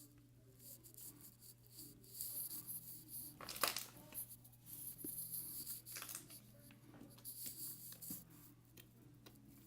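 Faint rustling and crackling from something being handled at close range, busiest from about two seconds in to near the end, with a sharper click near the middle and a low steady hum underneath.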